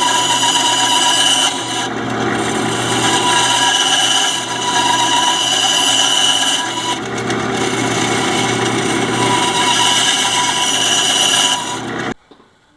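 Bandsaw with a thin blade running and cutting gear teeth into a plastic gear blank. The cutting noise eases briefly about three times as the blank is fed and turned.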